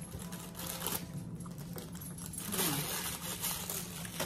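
Metal fork scraping and clinking against a dish during eating, in two short scrapes. A brief falling voice-like sound comes with the second scrape.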